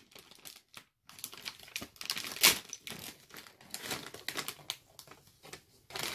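Shiny foil bag crinkling and crackling as it is pulled open by hand, in irregular sharp crackles with a short pause about a second in and the loudest crackle about two and a half seconds in.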